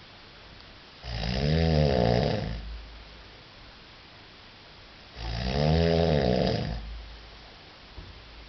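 A man snoring: two long snores about four seconds apart, each rising and then falling in pitch.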